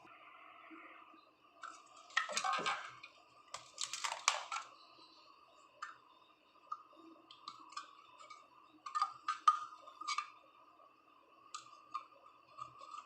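Scattered clicks, taps and short scrapes of small parts and tools being handled during reassembly at the back of a refrigerator, over a faint steady hum. The loudest bursts come about two seconds in, about four seconds in, and around nine to ten seconds.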